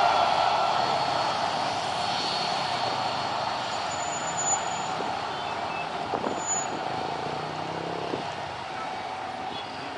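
Loud, steady rush of engine noise fading gradually as its source moves away.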